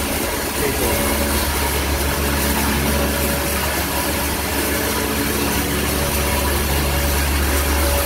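Cattle-feed processing machinery running steadily with a constant low drone.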